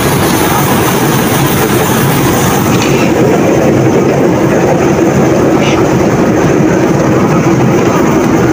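Fishing boat's engine running steadily and loud, a constant mechanical noise with a steady hum under it.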